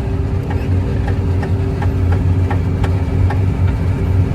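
John Deere 9750 STS combine running steadily while harvesting wheat, heard from inside the cab: a constant engine and machinery drone, with faint regular ticks about three times a second.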